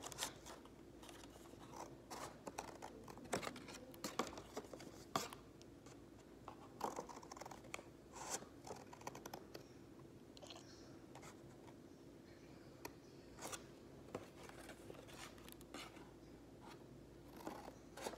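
Scissors snipping through a folded sheet of paper: a long series of short, sharp cuts at an uneven pace, some coming in quick runs.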